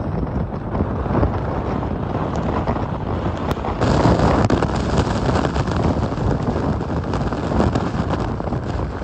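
Hurricane Helene's wind blasting across the microphone in a loud, continuous rumble, which grows stronger about four seconds in.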